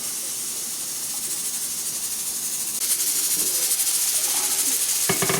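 Chopped onions sizzling in hot oil in a pan, a steady hiss that grows louder about three seconds in.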